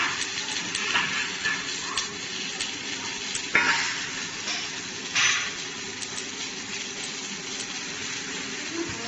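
Split set rock bolt ring welding machine welding a ring onto a bolt tube: a steady crackling sizzle of the weld, with brief louder hisses about three and a half and five seconds in.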